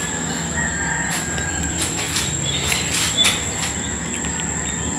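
Night insects keep up a steady, high-pitched drone, over a low rumble, with a few soft clicks around the middle.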